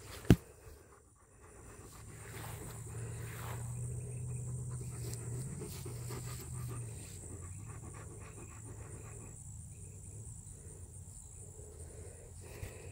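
An Alaskan malamute panting, over a steady high drone of insects. A single sharp click comes just after the start.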